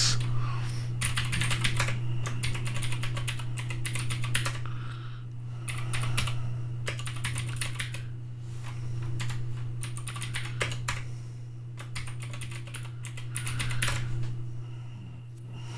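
Typing on a computer keyboard: several bursts of quick key clicks with short pauses between them, over a steady low hum.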